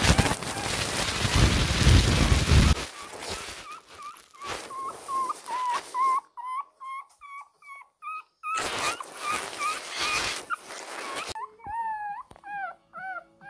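Twenty-day-old Shih Tzu puppy whimpering in a fast series of short high squeaks, about three a second, the crying of a newborn pup hungry to nurse. Loud rustling noise covers the first few seconds and comes again for a couple of seconds past the middle.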